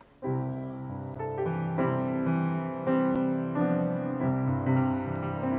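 Offertory music played on a keyboard with a piano sound starts just after the prayer ends. It is a slow piece of held chords under a simple melody.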